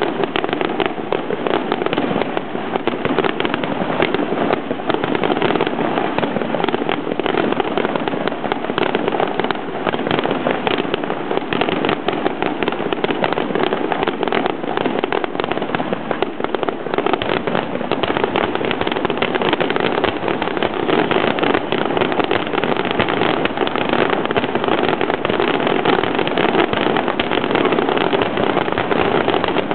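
Fireworks display: aerial shells bursting overhead in a dense, continuous run of bangs and crackles.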